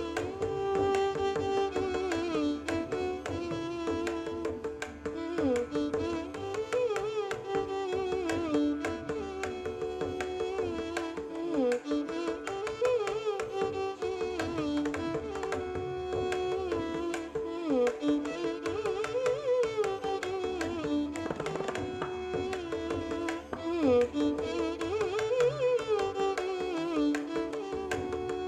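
Instrumental Indian classical background music: a melody line with gliding, ornamented notes over steady hand-drum percussion.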